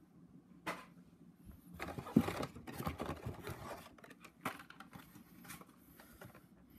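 Hot Wheels blister-carded cars being handled: plastic and cardboard packaging rustling and scraping, with a few sharp clicks.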